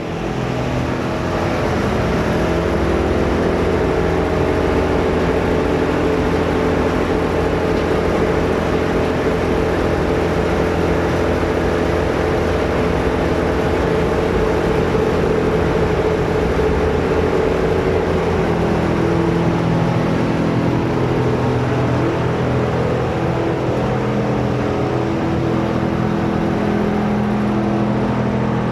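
Corn, cotton and rice-stalk shredding machine running steadily under power, a constant mechanical drone with a steady pitched hum over a wash of noise. The hum's pitch shifts slightly about two-thirds of the way through.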